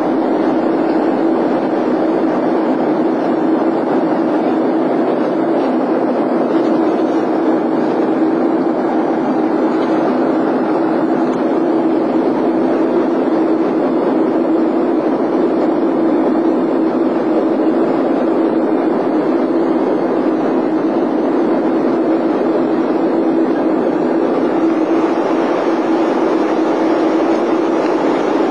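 Steady in-cabin noise of a Boeing 757 twin-engine jetliner in flight: an even rush of engine and airflow noise with a steady low hum running through it.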